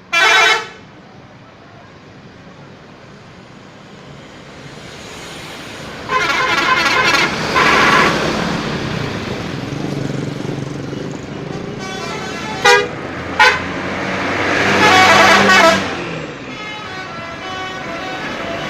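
Telolet horns of Sumber Jaya buses, the multi-note musical air horns of Indonesian buses, sounding in a series of blasts over a running bus engine. There is a short blast at the very start, a longer melodic run about six seconds in, two quick toots near thirteen seconds, and another long run around fifteen seconds, then a fainter one.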